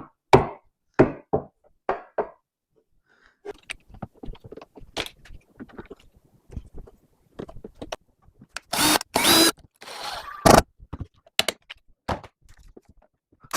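Knocks and thunks of wooden pieces being tapped and pressed into a tight fit, a run of separate sharp strikes with a louder cluster and some rubbing about nine to ten seconds in.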